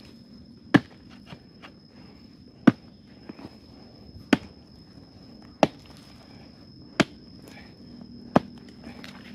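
A digging tool chopping into the hard-packed earth of a termite mound, six sharp strikes about one and a half seconds apart.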